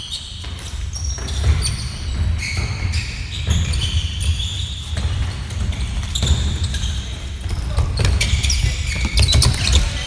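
Sneaker soles squeaking on a wooden gym floor and players' footfalls during a fast neohockey game, with sharp clacks of plastic sticks hitting the ball, thickest near the end.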